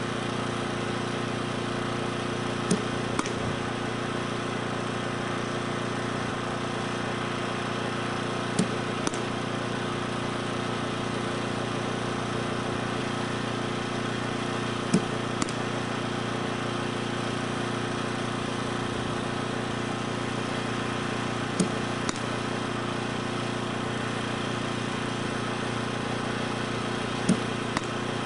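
Softball bat hitting pitched balls in batting practice: five sharp cracks about six seconds apart, each followed about half a second later by a fainter click. A steady motor-like hum runs underneath.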